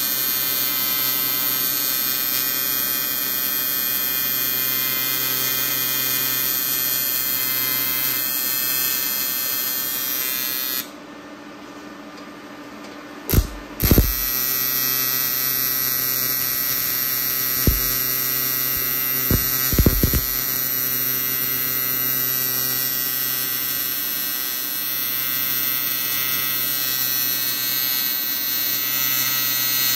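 AC TIG welding arc from an Everlast 325 EXT buzzing steadily as it lays a bead on a cast aluminum oil pan. The buzz breaks off for about three seconds near the middle, with a few short knocks around the restart.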